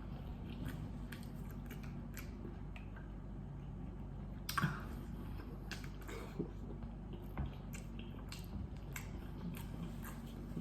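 Close-miked eating: chewing and wet mouth sounds as seafood-boil food is bitten and chewed, with scattered small clicks and a louder wet squish about four and a half seconds in, over a steady low hum.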